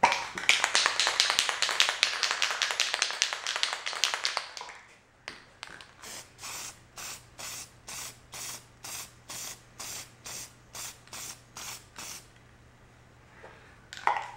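Aerosol can of 30-year-old metallic spray paint spraying in one long hiss for about four seconds. A run of short, evenly spaced bursts follows, about two a second, for about six seconds.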